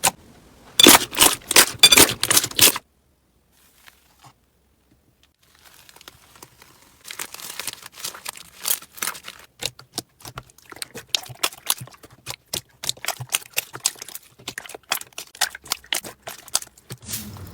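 Slime being squeezed and worked, giving dense crackling and popping clicks. A loud run of crackles near the start stops abruptly, and after a few seconds of near silence a longer, softer stretch of crackling follows.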